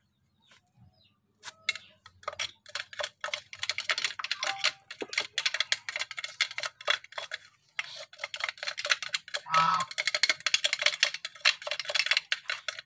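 A metal spoon scraping and tapping inside a small plastic cup, scraping out its contents: a quick, continuous run of clicks and scrapes that starts about two seconds in.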